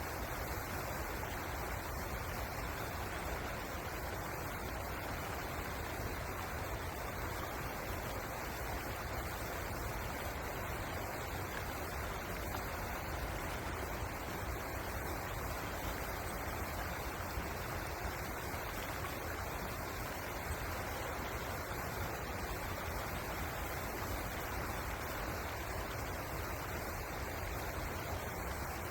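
River water rushing: a steady, even noise with no change throughout.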